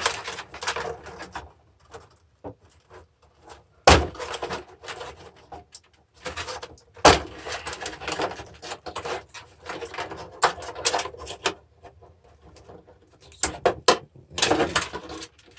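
Metal casing, parts and hand tools of a car battery charger being handled during dismantling: irregular clattering and scraping broken by sharp knocks, the loudest about 4 and 7 seconds in.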